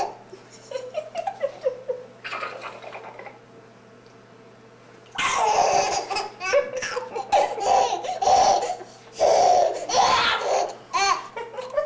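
Baby boy laughing: a few short giggles at first, a quieter pause, then a long run of loud, repeated laughter from about halfway through.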